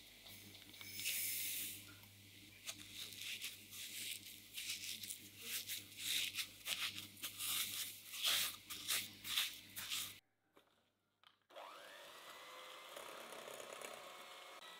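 Fine sugar poured onto softened butter in a glass bowl, then a silicone spatula pressing and scraping the butter and sugar in many quick strokes. After a short silence a Philips electric hand mixer starts with a rising whine and runs steadily on high speed, its beaters creaming the butter and sugar.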